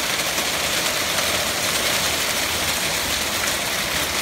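Hail falling in a dense, steady patter.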